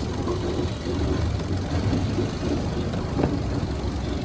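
Maruti Suzuki Dzire's four-cylinder petrol engine idling roughly and unevenly. Cylinder 2 is misfiring (code P0302) and the cylinder 4 coil is unplugged for a test, so the engine shakes harder. A single click about three seconds in.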